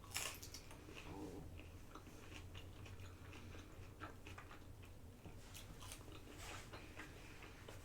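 Faint chewing and biting, with scattered small crunches and clicks of a person eating food up close.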